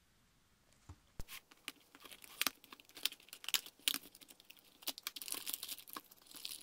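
Plastic shrink wrap and packaging of a small toy surprise package being torn open and crinkled by hand. It is a dense run of sharp crackles and rustles, starting about a second in.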